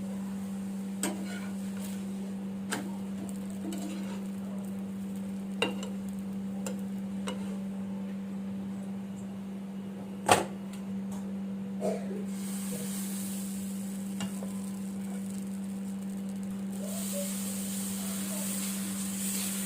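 Dosa batter sizzling on a hot tawa, the hiss setting in a little past halfway and again near the end. A few light utensil knocks come through, one sharper than the rest about halfway, over a steady low hum.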